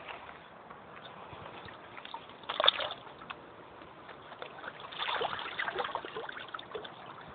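Water sloshing and trickling at the water's edge, with irregular small splashes and crackles, one sharp splash about a third of the way in, and a busier patch of splashing past the middle.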